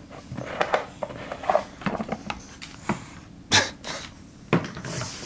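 Scattered short knocks and scuffs as a bulldog mouths and picks up a rubber frisbee from a wooden floor. The loudest is a sharp knock about three and a half seconds in.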